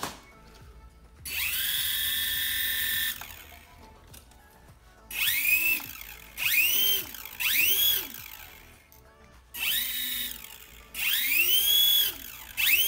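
Small electric motor salvaged from a toy helicopter spinning the model plane's propeller, throttled up and down from the radio transmitter. Its high whine is held steady for about two seconds, then comes in five or six short bursts, each rising and falling in pitch.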